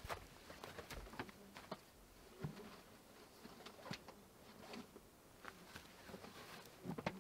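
Quiet, scattered footsteps and small knocks on wooden porch boards, irregular, some with a dull low thud.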